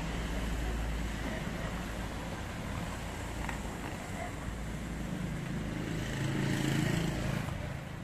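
Steady low rumble of street traffic, which swells about six seconds in as a vehicle passes and then eases off.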